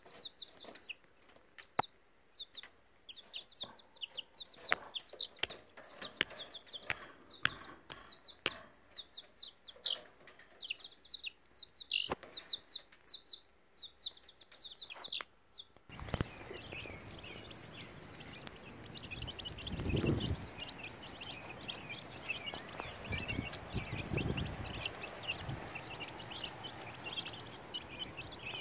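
Baby chicks peeping constantly in short, high, falling notes, with sharp clicks among them. About 16 s in the sound changes abruptly to a steady hiss under continued peeping, with two low rumbles partway through.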